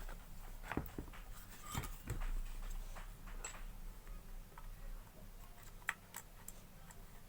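Faint, scattered clicks and light taps of metal parts being handled as the rear fan cover is fitted onto a water pump motor, with one sharper click about six seconds in.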